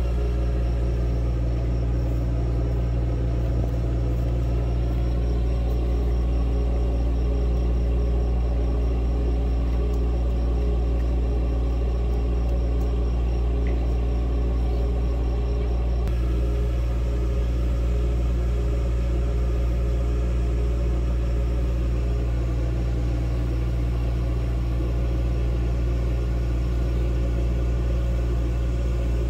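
A steady, low machine hum.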